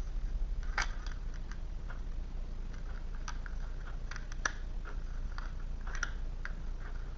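Tarot cards being handled: scattered soft clicks and taps of cards being moved and laid down, a few sharper ones, over a low steady hum.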